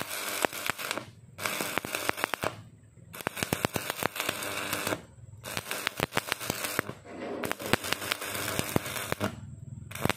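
Stick-welding arc crackling and spitting against a roller, in bursts of one to two seconds broken by brief pauses about five times.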